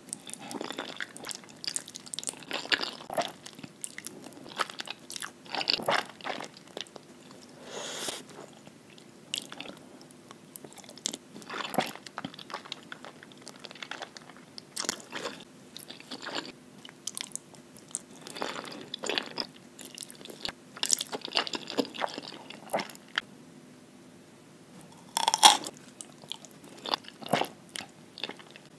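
Close-miked eating of jajangmyeon: thick wheat noodles in black bean sauce sucked up through the lips and chewed, in irregular bursts with short pauses between mouthfuls.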